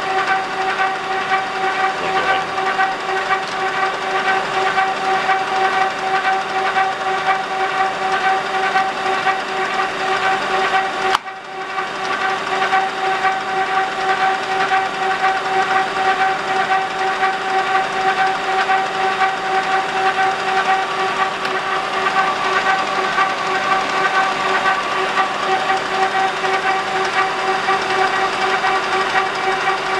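Clausing Colchester engine lathe running under power with its 3-jaw chuck spinning: a steady high whine from the geared headstock over a mechanical hiss, with a brief drop about eleven seconds in.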